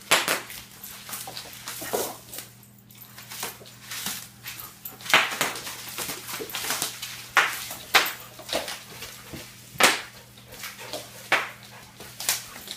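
Dogs playing in bubble wrap: a string of sharp crinkles and snaps at irregular intervals, roughly one every second or two.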